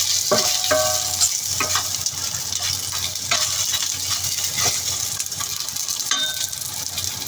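Fried taro cake sizzling in a hot wok as it is reheated, with a spatula scraping and clinking against the wok several times, the clinks ringing briefly.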